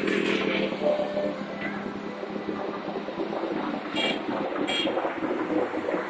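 Road traffic going by on a wide city street, a steady rush of passing vehicles, with two short high chirps about four seconds in.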